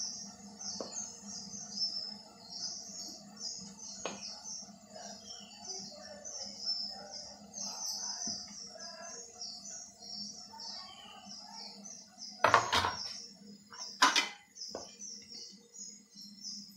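Quick, high bird chirping runs on steadily over a faint low hum, while a spoon scoops idli batter into an aluminium idli mould. Two sharp metallic clinks, the loudest sounds, come about three-quarters of the way in, a second and a half apart.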